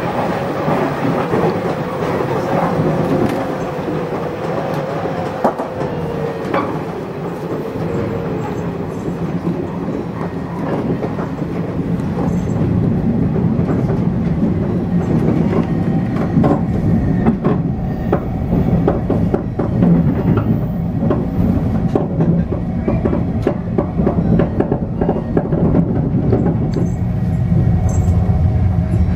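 JR 415 series electric train heard from inside its front cab while running on the track: a steady rumble of wheels and bogies with clicks from rail joints. A wavering squeal over the first several seconds as it rounds a curve, then the rumble grows louder as it runs alongside a station platform.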